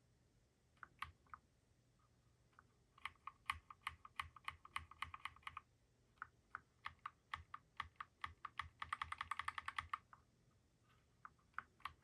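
Wombat Coleus mechanical keyboard keys clacking under typing. A few strokes come about a second in, then a quick run from about three to five and a half seconds, then another run that speeds into a fast flurry before stopping around ten seconds, and a couple of last strokes near the end.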